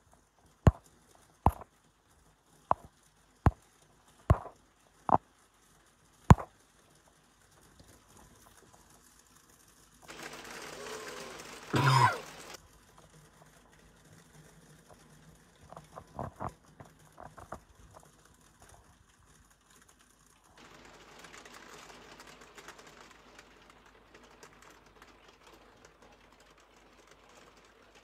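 Rain dripping: single drops striking a hard surface as sharp, separate taps, roughly one a second for the first six seconds, with a few more near the middle. A short burst of rushing noise with a louder peak comes about ten to twelve seconds in, and a soft steady hiss sets in for the last third.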